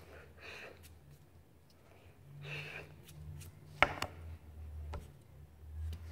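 A person's hands moving and rubbing while signing, with soft breathy mouth noises and one sharp slap or tap about four seconds in, over a steady low hum.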